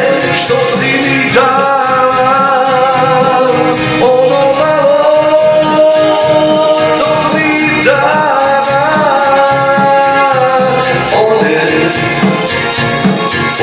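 A man singing a slow Bosnian-language song into a handheld microphone over a backing track with a steady beat, holding long wavering notes.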